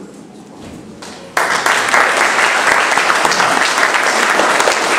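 Audience applauding, starting suddenly about a second and a half in.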